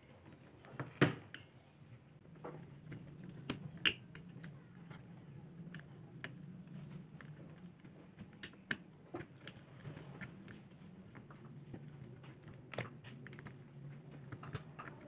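Irregular small clicks and taps of hand work on the washing machine's control board, over a low steady hum that sets in about two seconds in.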